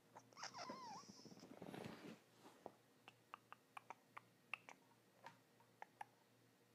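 Faint handling noise from a phone camera being set in a mount that won't stay in place: a short squeak in the first second, then a string of faint, irregular clicks.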